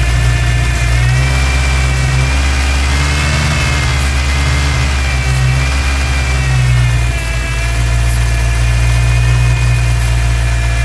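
1999 Ford Ranger's 2.5-litre four-cylinder engine idling, with thin high whistling tones that waver slowly in pitch over the engine note; the engine has a massive vacuum leak.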